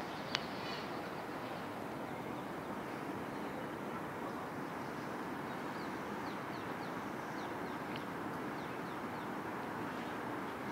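Steady outdoor background noise, with a run of short, high, falling chirps from small birds in the middle.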